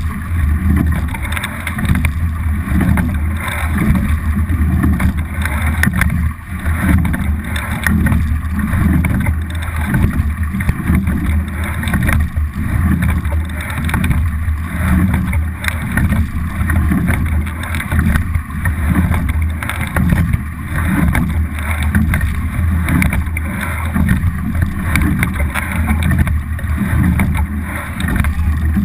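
Sound on board a double scull under way: a steady, loud rush of water along the hull and wind buffeting the boat-mounted camera's microphone as a low rumble, with occasional knocks.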